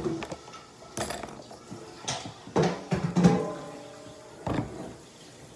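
Makeup palette and containers being handled and opened: about five sharp clicks and knocks at uneven intervals.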